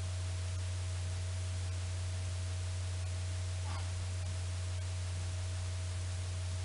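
Steady low electrical hum with a thin, faint higher tone and background hiss, and a faint brief sound a little past halfway.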